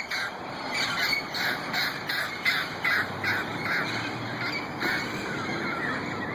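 Wild parrots giving a rapid series of short, harsh squawks, about two or three a second, which thin out and stop near the end.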